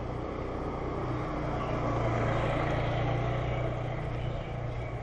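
Motorcycle engine running steadily at low road speed, with wind noise. It swells a little near the middle.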